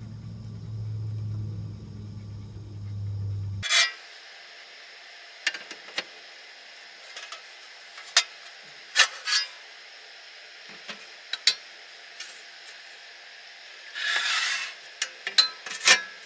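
A low hum that cuts off suddenly, then scattered sharp clicks and clinks of things being handled, with a short rustle near the end.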